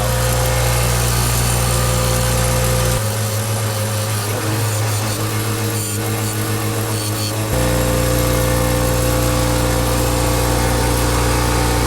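Bench grinder running with a steady motor hum while a steel chisel is ground against the wheel, giving a hiss over the hum. For several seconds in the middle the low hum thins out, then it comes back.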